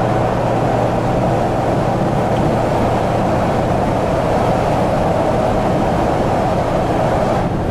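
Steady road noise of a car driving through a highway tunnel, heard from inside the cabin: an even rush of tyres and engine with a constant low hum.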